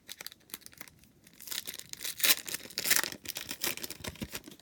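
A foil trading card pack being torn open and crinkled by hand. There is light crackling at first, then a dense run of tearing and crinkling for about three seconds from a second and a half in.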